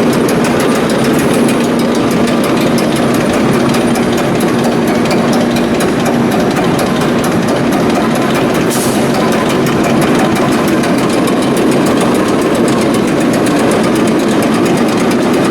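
Akasaka AX31R marine diesel main engine running steadily on the test bed during its shop trial, a loud, even mechanical clatter with a fast regular beat. A short hiss cuts in about nine seconds in.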